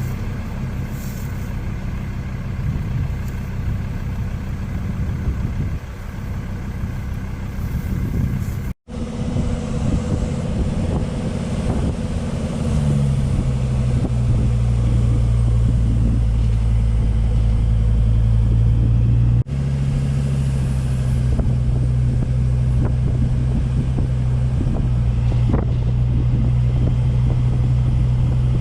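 Car driving at a steady speed: a low engine hum and road noise, the hum settling to one steady pitch. The sound drops out sharply for a moment about a third of the way in.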